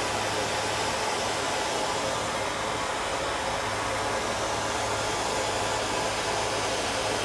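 Gas torch flame burning with a steady, even hiss while molten lead is cast into bars.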